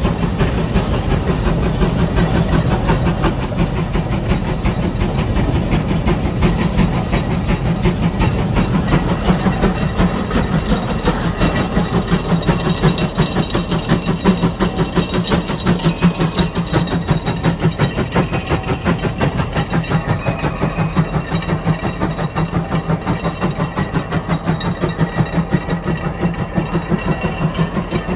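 Case 150 steam traction engine working hard under heavy draw-bar load, pulling a 44-bottom plow: a loud, fast, even exhaust beat that holds steady throughout.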